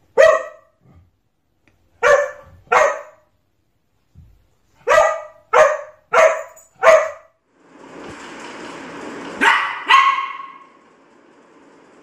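A dog barking at its own reflection in a mirror: nine sharp barks, single, in a pair, a quick run of four, then two more close together. A steady rushing noise comes in under the last two barks.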